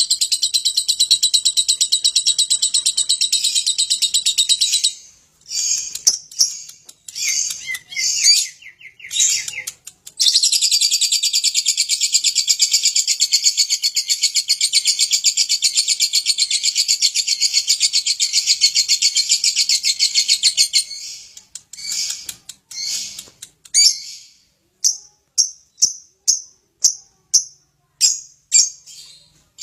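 Lovebird singing its long rapid chattering trill ('ngekek'): two long unbroken trills, the second about ten seconds long, split by choppy broken notes. The song ends in a run of short, evenly spaced chirps about two a second.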